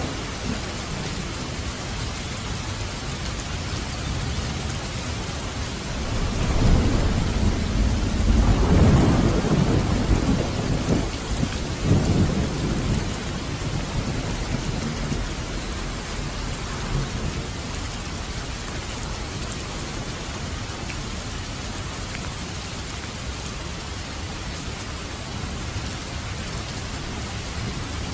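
Steady rain falling, with a long roll of thunder that builds about six seconds in, rumbles for several seconds and fades back under the rain.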